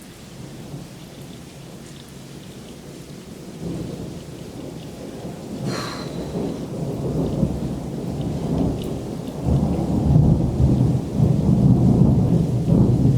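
Thunder rumbling after a lightning bolt. The low rumble builds about four seconds in and is loudest and most sustained from about ten seconds on.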